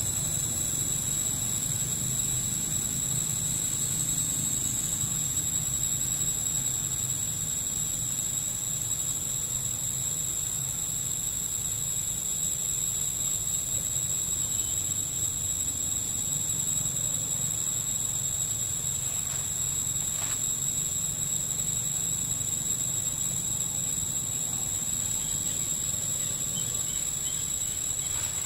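Insects droning in a steady, unbroken high-pitched whine, over a low, even background hum.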